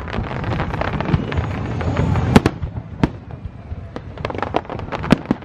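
Aerial fireworks bursting overhead. A dense run of crackling pops fills the first two seconds or so. Sharp shell bangs come about two and a half and three seconds in, and another flurry of crackles with a bang follows near the end.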